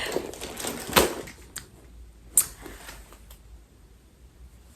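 Handling noise: four separate sharp clicks and taps over about two and a half seconds, the first the loudest, with quiet room tone between them.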